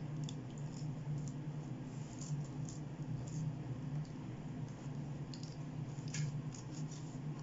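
Rotary pizza cutter rolling through a baked pizza's crust on a cutting board, giving scattered small scratches and clicks over a steady low hum.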